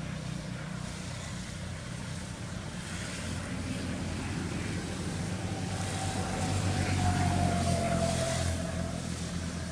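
A motor vehicle's engine running with a steady low hum. It grows louder past the middle and eases off near the end, with a faint whine over it.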